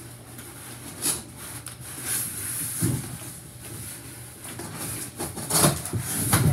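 Packaging being handled while a keyboard is unboxed: irregular rustling and scraping, with a louder cluster of scrapes and knocks near the end.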